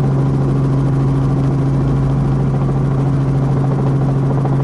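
Light helicopter in flight heard from inside the cabin: a steady engine and rotor drone with a constant low hum, unchanging throughout.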